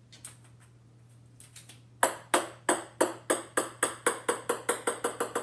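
A ping-pong ball bouncing on a wooden floor. Starting about two seconds in, the bounces come faster and fainter as the ball settles.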